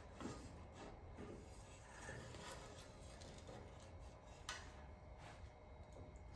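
Near silence: room tone with a few faint light taps and rubs, one slightly sharper tick about four and a half seconds in.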